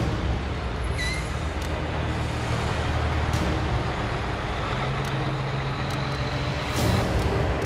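Topol-M missile launcher truck with its 16-wheeled chassis driving past, its heavy engine giving a steady low drone over road noise. There is a brief squeak about a second in, and a short hissing burst near the end.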